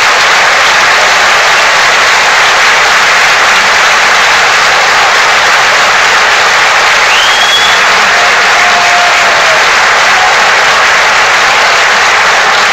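Large crowd applauding loudly and steadily at the end of a speech.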